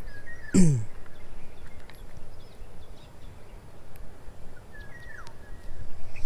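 Two short bird chirps, one just after the start and one about five seconds in, over outdoor ambience. A brief low voice-like sound falls in pitch about half a second in. Faint small clicks come from the metal snap as a soft-frog lure is clipped onto the fishing line.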